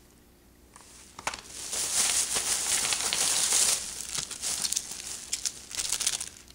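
Plastic and card packaging of nail sticker packs crinkling and rustling as they are handled and shuffled, starting about a second in. The rustle is heaviest for a few seconds, then breaks into scattered crackles and clicks.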